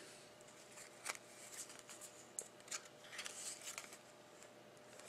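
Faint, soft clicks and rustles of glossy trading cards being handled and slid against one another, a few scattered ones and a short cluster about three seconds in.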